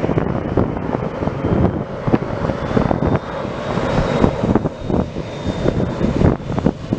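Aircraft engine noise at an airport, with a faint high whine holding through the middle, mixed with heavy wind buffeting on the microphone.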